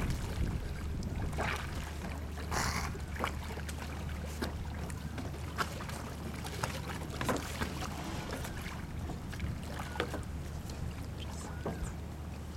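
Shallow seawater splashing and sloshing as stingrays thrash at the surface while being hand-fed, in short irregular splashes, over a steady low rumble.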